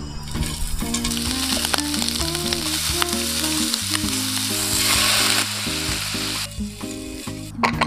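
Shrimp sizzling in hot oil as they pan-fry in a nonstick frying pan. The sizzle swells for a moment past the middle and dies away near the end.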